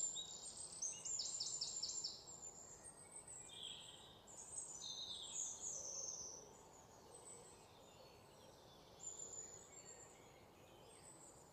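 Birds chirping and trilling over a faint steady hiss. The calls come thickest in the first couple of seconds, as fast runs of repeated chirps, then thin out to scattered single notes.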